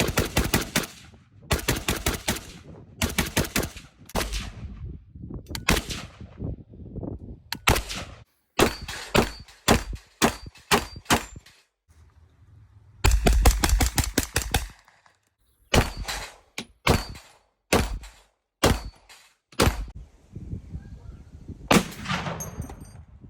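Automatic gunfire at a range: repeated rapid bursts mixed with single shots and short pauses. The longest and loudest burst comes about thirteen seconds in.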